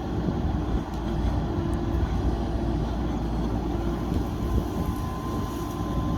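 Backhoe loader's diesel engine running steadily, a continuous low rumble with a faint steady higher tone over it.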